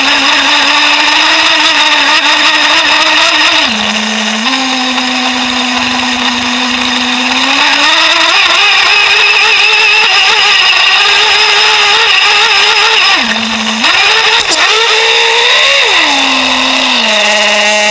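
Traxxas Jato RC truck's small nitro engine running at speed. Its note dips briefly twice, rises and holds high through the middle, then climbs sharply before dropping to a lower steady note near the end.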